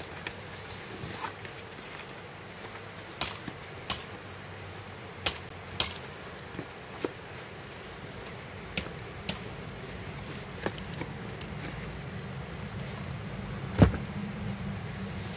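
Scattered sharp knocks and clicks of hard objects, about a dozen, with one louder thump near the end, over a low rumble that grows in the last few seconds.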